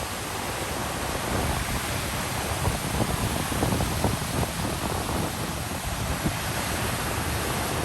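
Sea waves washing on a shore with wind, heard as a steady rushing noise, with wind buffeting the microphone in a flickering low rumble.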